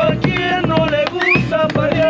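Live Argentine folk music: guitars and a bombo legüero drum playing a quick, steady beat under held melody notes.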